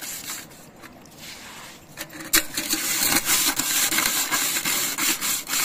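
A soot-blackened metal cooking pot being scrubbed with sand and a potato sack: a rasping scrub of quick strokes. It eases off briefly near the start, then resumes hard about two seconds in.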